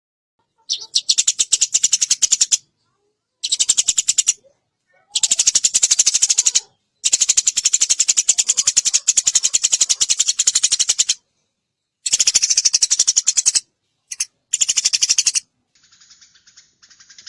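Eurasian tree sparrow (burung gereja) calling in fast, rattling runs of high chirps. The runs come in loud bursts of one to four seconds with short silences between, the longest in the middle, and a fainter run near the end.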